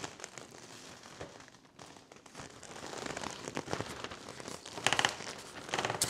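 Fabric sleeve rustling as a fiberglass rod is forced into a tight, airtight TPU connector, then two short sputtering hisses near the end: trapped air escaping past the rod in a pressure release that sprays out Windex, just before the rod slips the rest of the way in.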